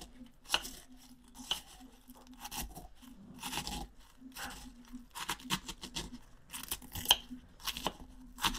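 Freeze-dried strawberries being crushed in a small mortar and pestle: a run of irregular crunching, scraping strokes.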